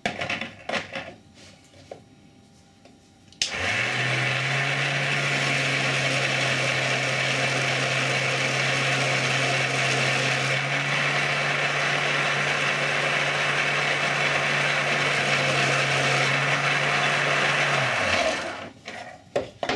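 Homemade powered sharpening machine: a few knocks and clicks as a 220-grit abrasive disc is fitted, then about three and a half seconds in the motor starts and runs steadily with a low hum. A chisel held in a honing guide hisses on the spinning abrasive disc until the machine stops shortly before the end.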